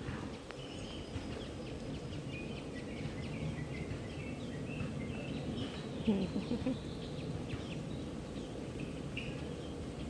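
Small birds chirping over a steady low background noise.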